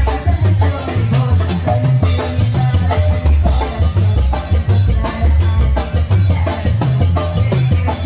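Live tamborazo band music: a heavy, steady low drum beat under a melody of held notes, with saxophone, drum kit and keyboard.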